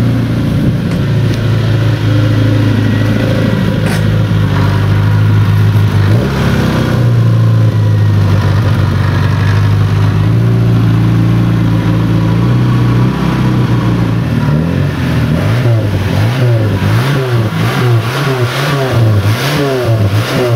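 ZAZ Tavria's 1.1-litre four-cylinder engine running at a steady raised speed, then revved up and down in quick repeated blips over the last several seconds. The exhaust note is loud and raw from a muffler holed at the base of its outlet pipe.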